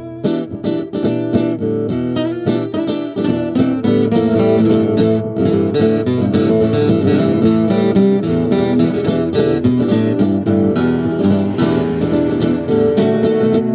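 Acoustic guitar music, strummed and plucked in a steady rhythm, with several note layers sounding together.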